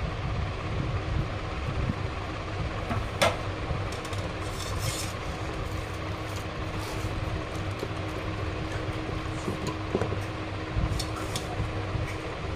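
Raw mutton being handled and pressed down by hand in an aluminium pressure cooker, with a few light knocks against the metal pot, the clearest about three seconds in. A steady low hum runs underneath.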